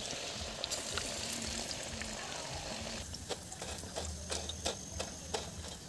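Parippu vada (lentil fritters) deep-frying in hot oil with a steady sizzle. From about three seconds in comes a run of sharp clicks and pops as the fried vadas are scooped out with a wire strainer.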